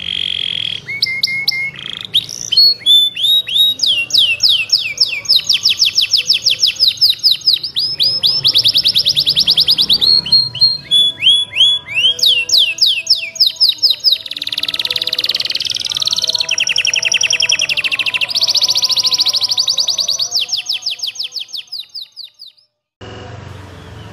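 Domestic canary in full song: long runs of fast, high-pitched trills and rapidly repeated chirps with hardly a pause. Near the end the song fades out and breaks off for a moment before starting again.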